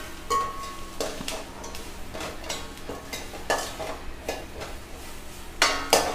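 Steel spatula stirring and scraping masala in a stainless steel pan, with several sharp metallic clinks against the pan, two close together near the end. A faint sizzle runs underneath as the shallots, spices and coconut roast on a low flame.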